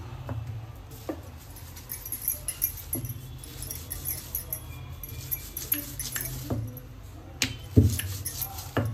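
Rolling pin working chapati dough on a stone countertop, with metal bangles on the wrists jingling as the hands move. Several knocks of the pin against the counter are heard, the loudest near the end.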